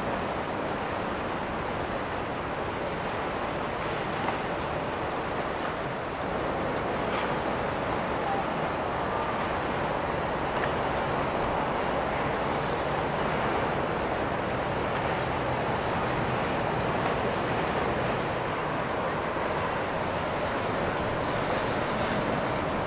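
Steady rushing of water and wind, with no clear engine note; it grows a little louder about six seconds in.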